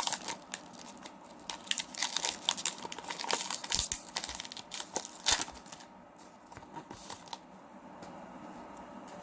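Foil wrapper of a Pokémon card booster pack being torn open and crinkled: a run of quick crackles and rips, loudest about five seconds in, dying down to a few faint rustles after about six seconds.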